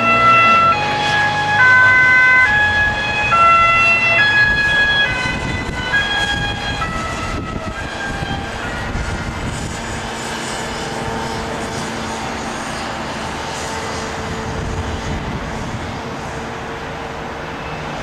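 Dutch ambulance siren on an emergency run, sounding steady tones that switch back and forth between pitches. It is loud at first and fades after about seven seconds as the ambulance drives away, leaving the steady rush of road traffic.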